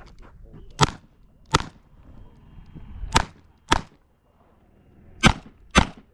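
Six shots from a Smith & Wesson 625 revolver in .45 ACP, fired in three quick pairs: a full cylinder in a timed revolver match string.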